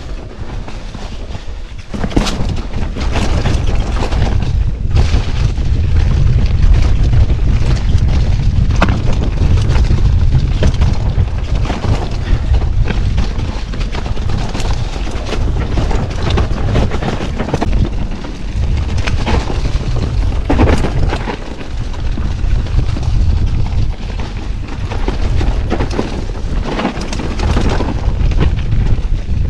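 Mountain bike descending a rough forest trail: heavy wind rumble on the camera microphone, with frequent sharp knocks and rattles as the bike hits roots and rocks.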